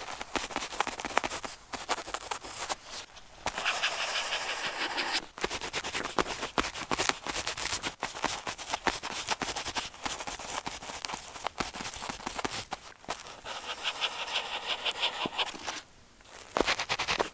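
Pen tip scratching across paper in quick, short strokes, with two longer smooth strokes that hiss for about two seconds each.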